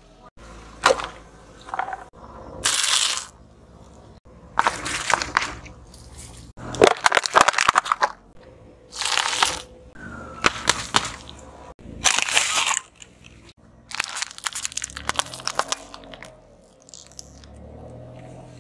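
A car tyre crushing plastic-wrapped sweets and filled candy tubes on asphalt: a series of about eight crackling, crunching bursts, each up to a second or so long, separated by short quieter gaps.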